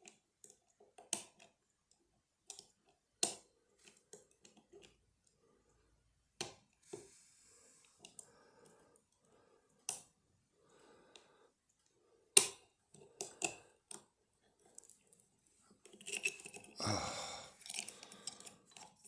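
Steel lock picks and a tensioning tool clicking and scraping inside a lever lock, with single sharp clicks every second or two. Near the end comes a longer, louder burst of scraping and rattling.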